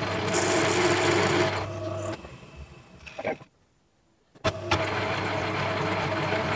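Myford Super 7 lathe running under motor power on a thread-cutting pass: a steady motor hum and gear whine, with a hiss from the cutting tool early on. It stops about two seconds in and starts up again after about four and a half seconds.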